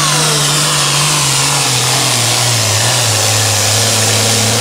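Super farm class diesel pulling tractor running flat out under heavy load as it drags the pulling sled. The engine note holds steady, then sags lower partway through as the engine is pulled down by the sled.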